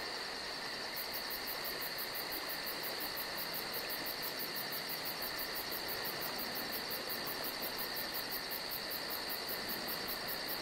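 Crickets chirping steadily at night: a high, rapidly pulsed trill, several pulses a second, that stops for about a second at the start and then runs on evenly over a lower steady drone and faint hiss.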